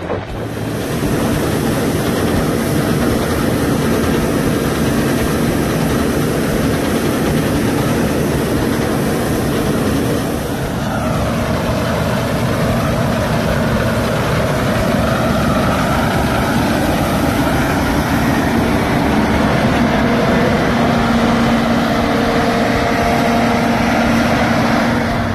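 Heavy farm machinery running steadily. From about ten seconds in, a New Holland CR8.90 combine is harvesting up close: its engine and threshing machinery give a steady drone with a held whine on top.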